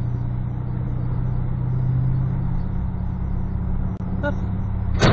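Steady in-car driving noise picked up by a dashcam microphone: low engine and road hum from a car rolling at about 30 km/h. A brief sharp loud noise comes right at the end.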